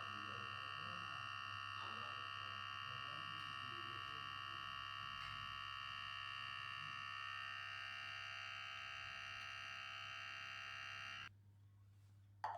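Outin Portal portable espresso machine's electric pump buzzing steadily while pulling a shot of espresso, then switching off abruptly about 11 seconds in. A short click follows near the end.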